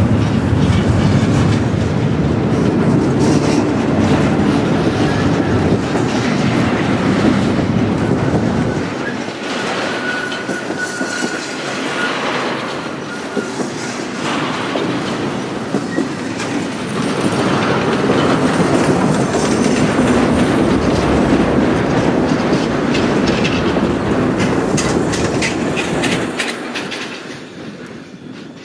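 Double-stack intermodal container train rolling past at close range: the steady rumble and clatter of its wheels on the track, with a faint high wheel squeal about ten seconds in. The noise fades away near the end as the last cars clear.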